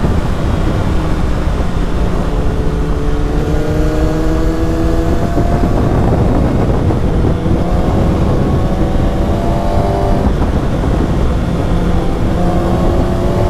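The 636 cc inline-four of a Kawasaki ZX-6R, heard through an Akrapovic slip-on exhaust under acceleration. The engine pitch climbs steadily three times, breaking off between pulls as it shifts up, over a steady rumble of wind and road noise.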